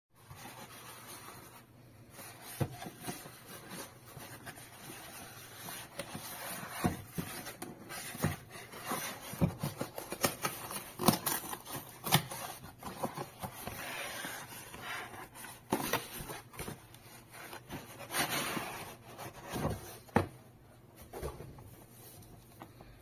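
Cardboard shipping box being handled and opened by hand: cardboard rubbing and scraping, with many sharp knocks and taps against the desk.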